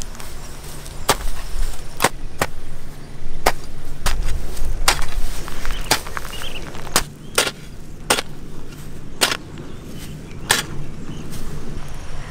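A long-handled hoe chopping into grassy soil: about a dozen sharp strikes, irregularly spaced, roughly one a second.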